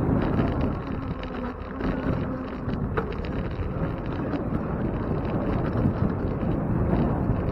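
Wind buffeting the microphone over the rumble of a bicycle rolling along paving, with a faint buzzing hum in the first couple of seconds and a single sharp click about three seconds in.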